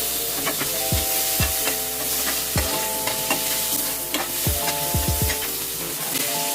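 Onions sautéing in hot oil in a pan, sizzling steadily, with a spatula stirring, scraping and clicking against the pan.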